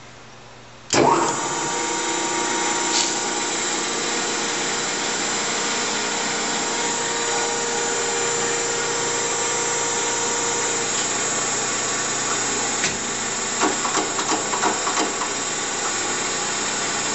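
A Chevalier FSG-1224AD surface grinder switched on: it starts with a sudden loud clunk about a second in, then runs steadily with a whirring hum of several steady tones from its spindle motor and hydraulic pump. A few light clicks come near the end.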